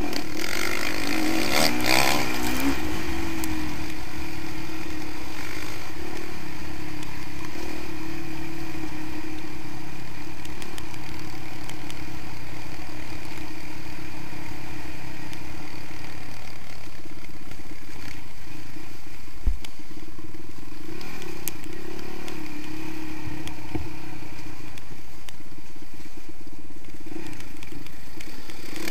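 Honda CRF450R's single-cylinder four-stroke engine running at a fairly steady, moderate speed, heard close up from the bike-mounted camera while riding a rough dirt trail, with clatter from the bike and a brief knock about twenty seconds in.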